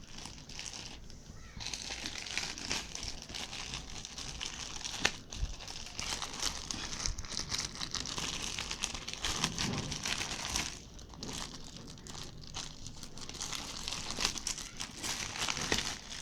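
Packaging crinkling and rustling in irregular bursts as a parcel is unpacked by hand, with a brief quieter pause and a single sharp click.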